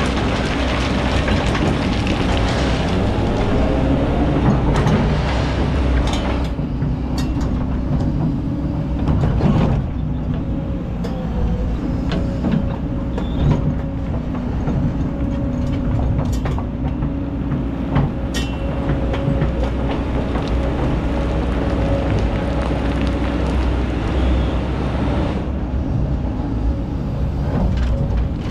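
Kobelco hydraulic excavator running steadily under load as it digs hard black sand and rock, its engine a constant low drone with a steady tone over it and scattered knocks of stone against the bucket. A rushing hiss of sand and gravel pouring into the dump truck's bed fills the first several seconds and comes back near the end.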